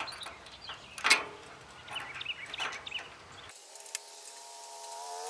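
Metal clinks and knocks of hand tools and bolts on a hay rake's steel frame as nuts are fitted, with one sharp knock about a second in and faint bird chirps. About three and a half seconds in this gives way abruptly to a steady hum at several pitches.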